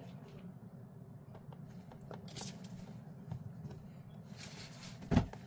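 Faint rustling handling noises over a low steady hum, with a single sharp knock near the end.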